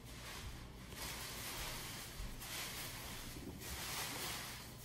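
A rough hissing noise that comes in several surges of about a second each.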